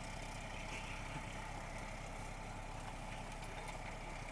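Garbage truck's diesel engine idling steadily, a low even rumble with no revving.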